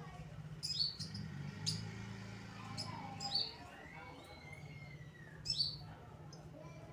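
Long-tailed shrike (cendet) giving short, sharp high calls, about five of them, each dropping quickly in pitch and spaced irregularly, over a steady low hum.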